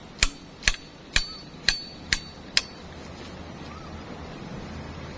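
Six sharp metallic clanks with a brief ring, evenly paced about two a second, stopping a little over halfway through.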